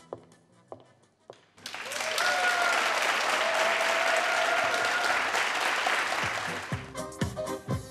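Audience applauding for about five seconds, starting about two seconds in, with one long cheering call from a single voice held over the clapping. Music with a beat begins near the end.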